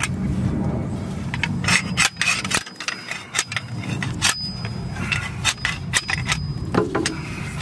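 Metal hand tools scraping and clicking against car parts, an uneven run of sharp knocks and scrapes, while the CV axle's seal is being pulled out.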